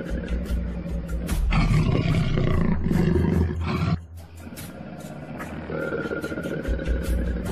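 A loud animal roar lasting about two and a half seconds, starting about a second and a half in, over background music with a steady ticking beat.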